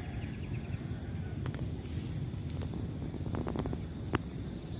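Outdoor ambience by a flooded river: a steady low rumble under a thin, steady high hiss, with a short, quick run of bird chirps about three and a half seconds in and a single click just after.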